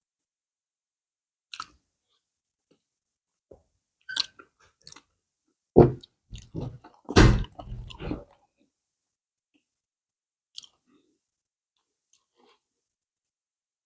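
A person chewing a meal of pounded yam and banga soup close to the microphone: scattered wet mouth clicks, with a louder run of chewing and mouth sounds about four to eight seconds in.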